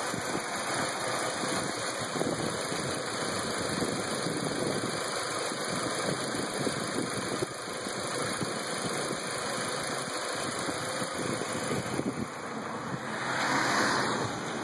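2002 Volkswagen Passat 1.8T turbocharged four-cylinder engine idling rough, a fault that comes with intermittent stalling just after start and a lit check-engine light. A louder hiss rises briefly near the end.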